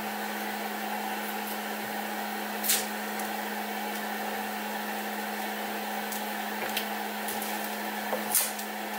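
Steady hum of a Snapmaker 2.0 3D printer's fans running, with two short sharp handling noises, one about three seconds in and one near the end.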